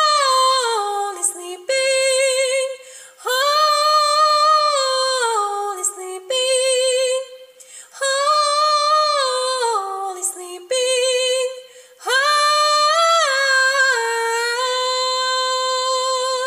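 A woman singing solo a cappella, with no accompaniment. She sings slow phrases that sway and fall in pitch, then holds a long note with vibrato near the end.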